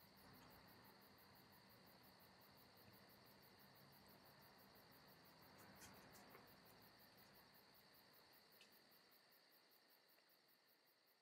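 Faint crickets chirping: an even, rapid high pulse over a steady high hum, fading out near the end, with a small rustle about six seconds in.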